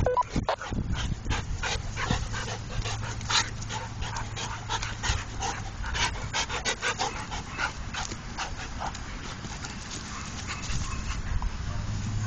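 Large dogs wrestling in play up close: a quick, irregular run of short breathy panting and scuffling noises, thinning out near the end.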